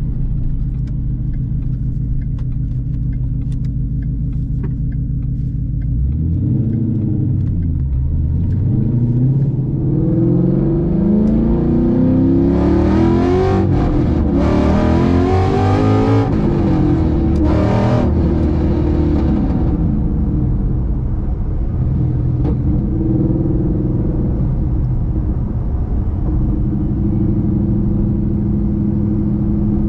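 Ford Mustang Boss 302's 5.0-litre V8 running through aftermarket side pipes. It cruises steadily at first, then from about six seconds in is driven up through the gears, the pitch climbing and dropping at each shift and the exhaust getting much louder and raspier, before it settles back to a steady cruising drone for the last ten seconds.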